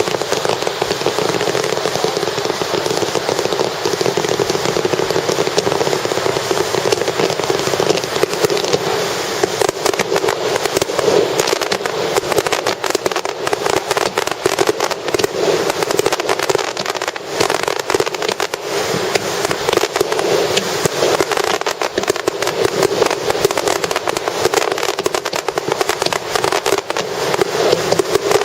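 Star mine fireworks: a dense, unbroken barrage of shell bursts, with sharp cracks and crackling overlapping one another throughout.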